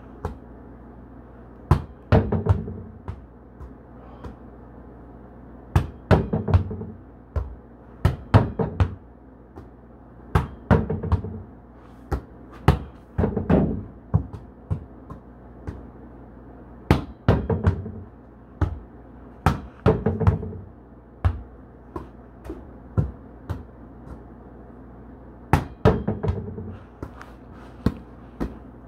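Volleyball repeatedly struck and rebounding off a plywood wall board: sharp thuds and slaps coming in quick clusters of two to four, with pauses of one to four seconds between them.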